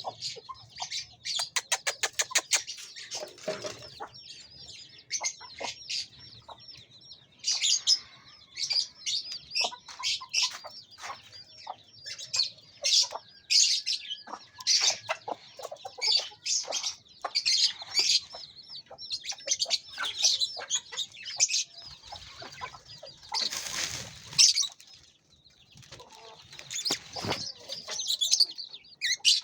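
Birds chirping in quick, high-pitched calls, many overlapping, with a fast rattling run of notes about a second in and wing flaps.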